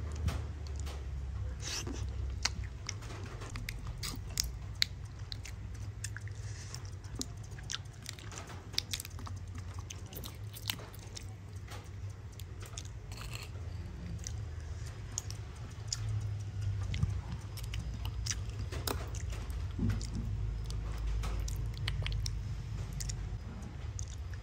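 Metal spoon scooping the soft embryo and yolk out of a boiled balut (fertilized duck egg) in its shell. Many scattered sharp clicks of the spoon against the shell mix with soft, wet squishing.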